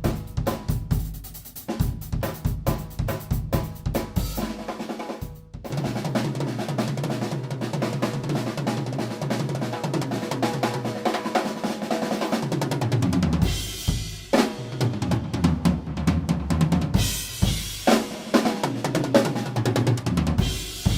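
Drum kit played solo: evenly spaced bass drum and snare strokes for the first few seconds, then a long, fast unbroken run of strokes across the drums, with cymbal crashes in the second half.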